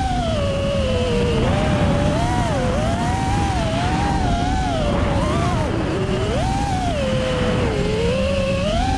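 FPV quadcopter's brushless motors and propellers whining, the pitch swinging up and down constantly with throttle during the chase, dipping sharply about six seconds in and climbing again near the end. A low rushing noise runs underneath.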